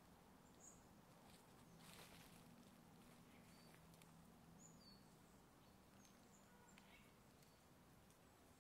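Near silence of a quiet forest, with a few faint, short bird chirps scattered through and a faint rustle about two seconds in.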